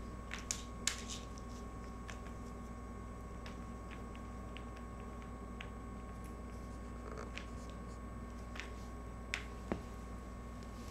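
A cat playing with a string on a smooth kitchen floor: scattered faint taps, soft rustles and light clicks as it paws at and bites the string, with a few sharper clicks near the start and two close together near the end. A steady background hum runs underneath.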